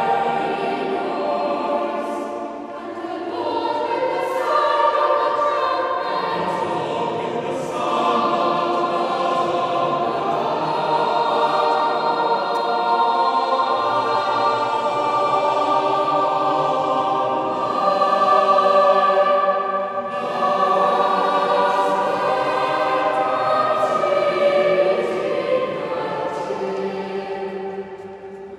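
Mixed choir of children's and adult voices singing a sustained piece in parts, carried by the long echo of a large stone chapel. The level falls away near the end.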